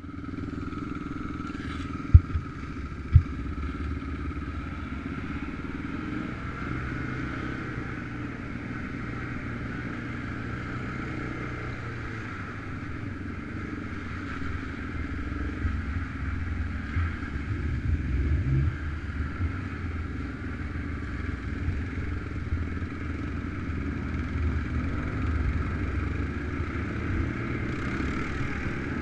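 ATV engines running steadily at trail-riding speed, getting a little louder in the second half. Two sharp knocks about two and three seconds in.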